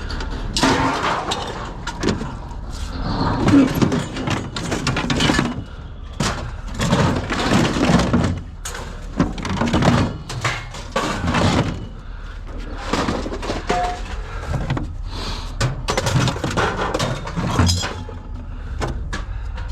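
Repeated, irregular crashes and clanks of hard objects being handled and dropped.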